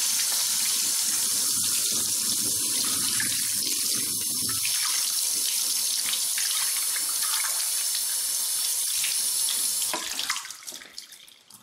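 Kitchen faucet running steadily, water pouring over a circuit board held under the stream and splashing into the sink. The flow stops about ten seconds in.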